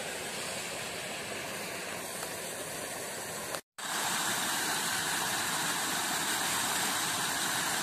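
Water pouring steadily from an outfall into a stream, an even rushing that breaks off for an instant about halfway through and then goes on a little louder.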